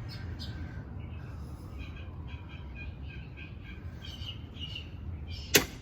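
Birds chirping in the background, a string of short high chirps over a steady low rumble, with a single sharp click near the end.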